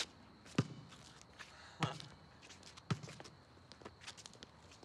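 A basketball being dribbled on a hard court: three solid bounces about a second apart, with footsteps scuffing between them.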